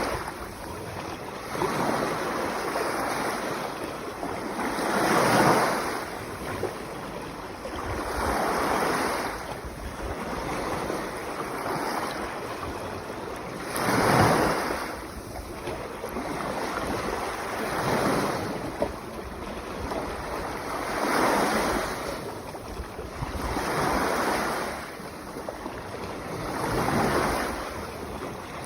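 Sea waves washing onto the shore, one surge of rushing water swelling and falling back about every three to four seconds.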